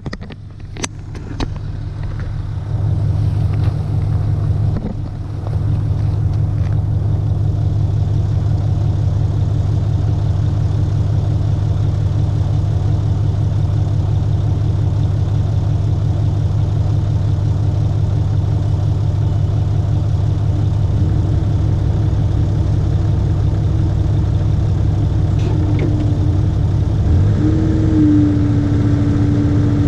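IHI 80NX compact excavator's diesel engine running steadily, with a few sharp knocks in the first seconds and a brief dip in level after about five seconds. Near the end a higher steady whine joins the engine.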